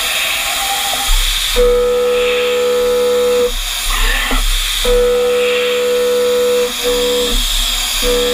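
Seven-flute Gorilla Mill Baboon carbide end mill, half an inch across and turning at 3820 RPM in a CNC mill, taking a profile cut in 4140 pre-hard steel. It gives a steady ringing tone while in the cut: first for about two seconds, then again from about five seconds in, in stretches with short breaks. A steady hiss runs underneath.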